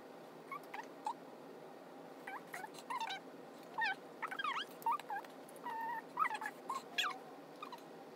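A pet animal whimpering: a string of short, high-pitched squeaks and whines, some sliding up or down in pitch and one held a little longer, coming thick in the middle and trailing off near the end.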